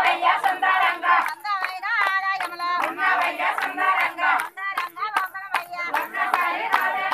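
A group of men and women singing together, with many hands clapping in a steady beat, about three to four claps a second.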